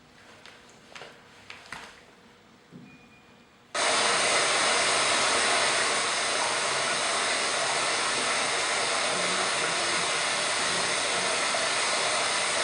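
Recorded sound effect of a steady rushing noise, which listeners take for ocean waves. It switches on abruptly about four seconds in, holds an even level, and cuts off sharply near the end.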